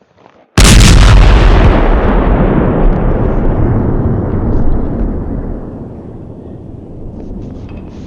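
A sudden explosion blast about half a second in, followed by a long rumble that slowly dies away over several seconds. It is an edited-in explosion sound effect.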